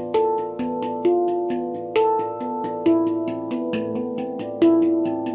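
A low-tuned A2 Baopan handpan played by hand. A rapid stream of light strokes runs under stronger accented notes about once a second, and the notes ring on and overlap.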